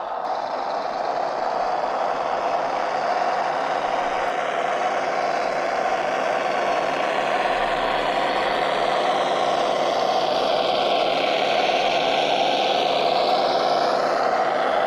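Scale RC truck's sound module playing a simulated truck engine through its small onboard speaker, running steadily as the model crawls. A higher whine rises and falls in pitch near the end.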